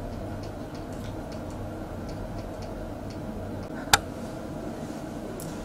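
Steady low room hum with faint, frequent ticking, and one sharp click about four seconds in.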